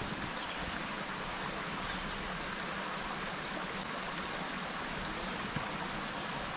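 A steady rushing noise, like running water, with a few faint high chirps and a light tick about five and a half seconds in.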